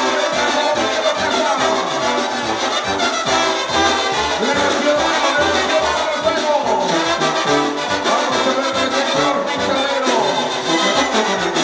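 Brass band music: trumpets and trombones playing a lively tune over a bass line.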